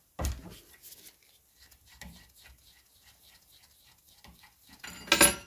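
Open-ended spanners working on a diesel fuel injector and its loose extension clamped in a bench vice: a sharp knock about a quarter second in, then small clicks and taps of the parts being turned and handled, and a louder clatter near the end.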